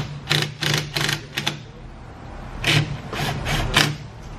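Cordless impact driver run in short trigger bursts, driving bolts on a brake caliper: a quick run of about four bursts, a pause, then about four more.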